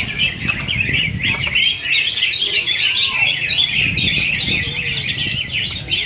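A dense chorus of many caged songbirds singing at once, with fast, overlapping chirps and warbles in a bird-song contest. A low crowd murmur runs underneath.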